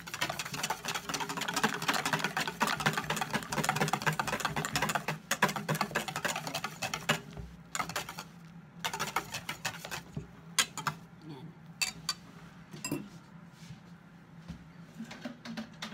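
Hand whisk mixing frothy beaten egg white into egg custard batter in a stainless steel bowl: fast clinking and scraping against the metal for about seven seconds, then slower, scattered taps that die away near the end.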